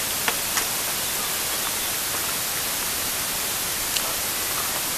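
Steady, even static hiss, with a few faint clicks.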